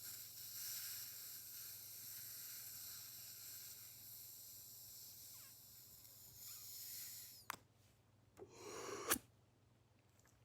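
A long, steady breathy hiss of a vape hit, lasting about seven seconds. Near the end comes a short quick breath cut off by a sharp hiccup.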